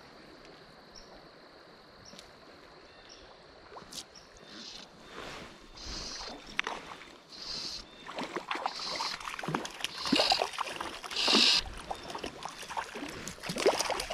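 A hooked trout splashing and thrashing at the surface of a shallow creek as it is played in on a fly rod. The splashing starts a few seconds in, comes in repeated bursts and grows louder toward the end.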